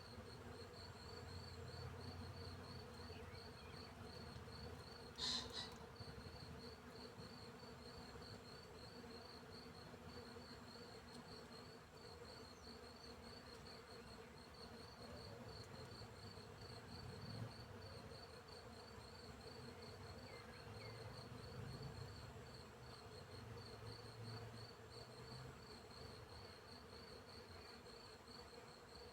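Faint field insects: a cricket chirping in an even, rapid pulse, with bees buzzing low and coming and going. A single brief sharp sound about five seconds in stands out above them.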